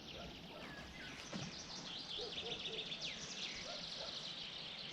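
Small songbirds chirping and singing, with many short, quick calls overlapping.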